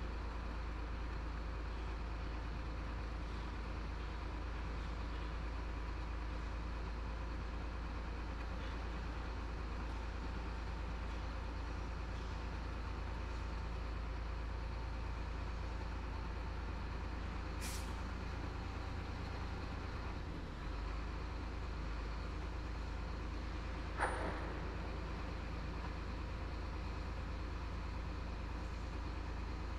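Chenglong 375 truck's diesel engine running steadily, heard inside the cab. A faint click comes past the middle, and a brief sharp sound, the loudest moment, about three-quarters of the way through.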